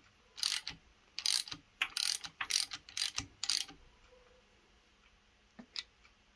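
Hand ratchet clicking in about eight short strokes over three seconds, running down the camshaft sprocket bolt on a Mopar 360 engine before it is torqued. A couple of faint clicks follow.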